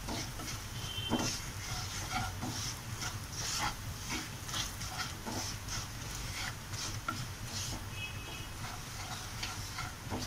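Crushed garlic and ground spices frying in ghee in a pan on low flame, with scattered crackles throughout, while a wooden spatula stirs and scrapes through the mixture.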